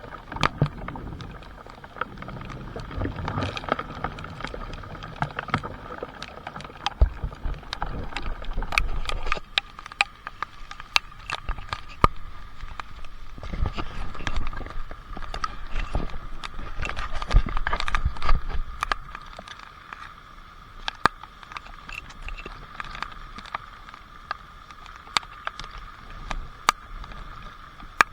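Rain and water drops falling, heard as sharp, irregular taps, with gusts of wind swelling low on the microphone several times. A steady high-pitched hum runs underneath.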